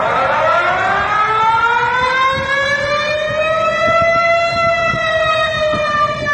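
Civil defense warning siren winding up: one loud tone that rises slowly in pitch over about four seconds, then levels off and sags slightly, over a grainy low rumble.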